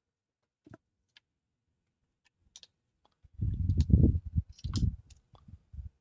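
A few scattered light clicks as a D-sub cable connector and test leads are handled on a workbench, then, from about three seconds in, a denser, louder stretch of low thumps and rubbing with clicks as the connector is pushed onto a small ECU test box.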